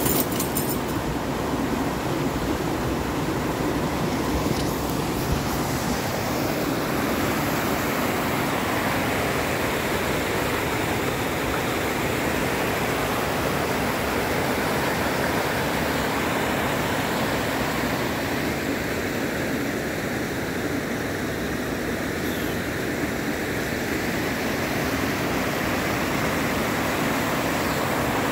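Flooded creek in spate, whitewater rushing steadily over and around rocks.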